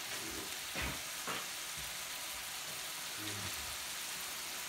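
Walleye fillets frying in butter in a skillet: a steady sizzle, with a couple of faint knocks about a second in.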